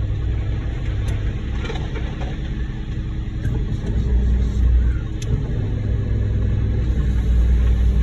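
Concrete mixer truck's diesel engine running with a steady low rumble, swelling louder for a moment about four seconds in.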